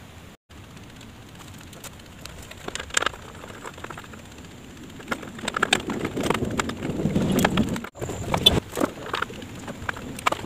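Hands working at the back of a scooter's plastic headlight housing, fitting an LED bulb into the headlamp socket: scattered plastic clicks and taps with rubbing and rustling. The clicks come thickest in the second half.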